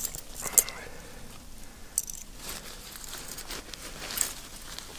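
Hand rummaging through a backpack pouch: fabric rustling, with a few sharp clicks of small gear items knocking together.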